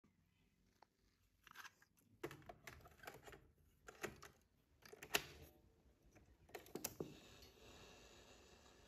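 Plastic clicks and knocks from a cassette being slotted into the tape compartment of a Crown CRC 9950 radio-cassette recorder, the sharpest a snap about five seconds in. A piano-key transport button clacks down about seven seconds in, followed by a faint steady hiss as the tape starts to run.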